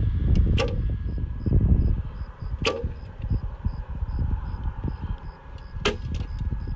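Three traditional bow shots about two to three seconds apart, each a sharp snap of the string as an arrow is loosed toward a distant clout target.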